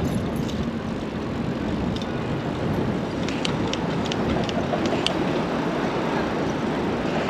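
Steady rumble of city street traffic heard from a moving bicycle, with a few light clicks about halfway through.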